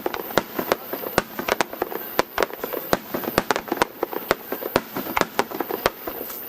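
Aerial fireworks bursting in quick, irregular succession: many sharp bangs, about three a second, with crackling and rumble filling the gaps between them.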